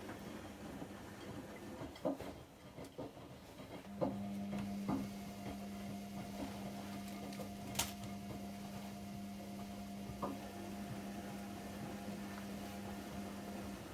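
AEG Öko-Lavamat 73749 washing machine in the wash phase of a 95°C boil wash. A steady machine hum starts about four seconds in and stops just before the end, over light clicks and knocks from the tumbling drum.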